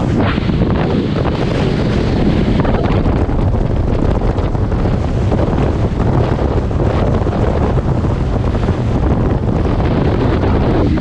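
Loud wind buffeting the microphone on a speedboat running fast over the sea, with the rush of engine and water beneath it, steady throughout.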